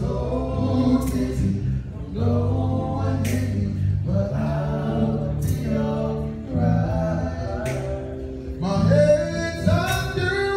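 A vocal group singing in close harmony, gospel-style, with long held low notes under a lead line. A short sharp hit marks time about every two seconds.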